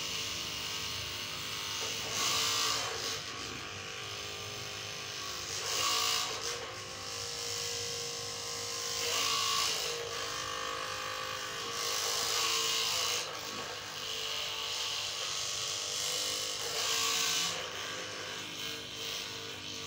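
A small electric motor buzzing steadily, swelling louder every three to four seconds.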